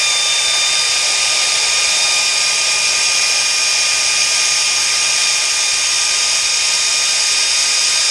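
Pneumatic air ratchet running continuously at full speed, a loud steady hiss of exhaust air with a constant whine, backing out a very long bolt.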